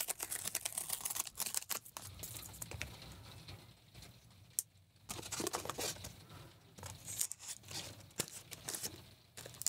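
Cardboard mailer being opened: packing tape slit and torn, with scratching, scraping and rustling of the cardboard as it is handled. A single sharp click about four and a half seconds in.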